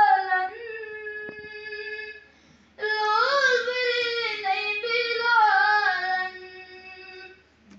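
A boy singing a Naat, an Urdu devotional poem, with no instruments: two long, ornamented phrases with held, wavering notes, and a short break between them about two and a half seconds in.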